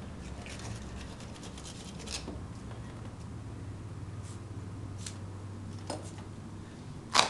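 Soft scattered scraping and tearing as hands work skin and flesh off a gutted sturgeon carcass, over a low steady hum. A single sharp knock near the end is the loudest sound.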